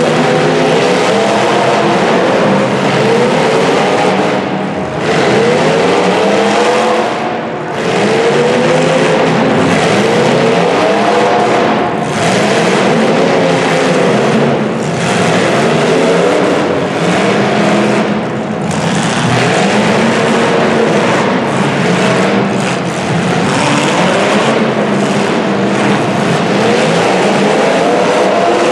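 Engines of several full-size demolition derby cars revving hard together, their pitch rising and falling over and over as they accelerate and back off.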